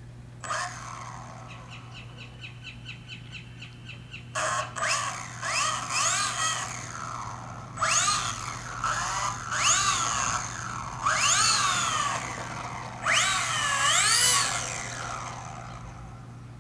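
Electric motor and propeller of a Typhoon 3D RC model airplane, throttled on the ground. It first runs low and steady with a fast ticking, then from about four seconds in whines in repeated bursts that rise and fall in pitch as the throttle is opened and closed.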